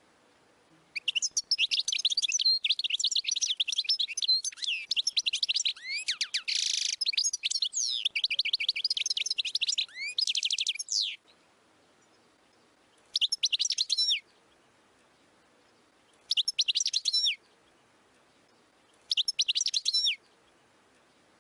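European goldfinch singing: a long run of fast twittering and trills lasting about ten seconds, with a harsh buzzy note near the middle, then three short twittering phrases a few seconds apart.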